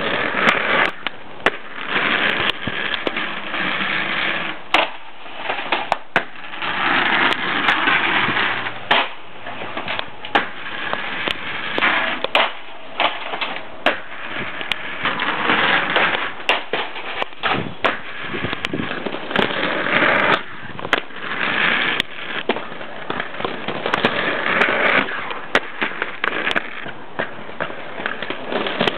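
Aggressive inline skate wheels rolling on rough asphalt, a gritty rumble that swells and fades, broken by many sharp clacks and knocks.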